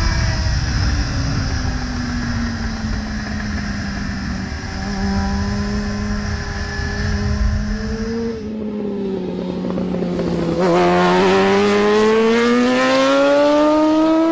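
Sportbike engine at speed on a race track. First heard on board over heavy wind rush, the note drops about a second in and then holds steady. Then, heard from trackside, a bike's engine rises steadily in pitch as it accelerates out of a corner, turning louder about two seconds after that.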